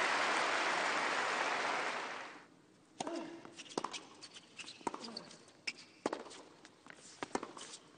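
Tennis crowd applauding after a point, dying away about two and a half seconds in. Then the arena goes hushed, with scattered sharp taps and clicks from the court.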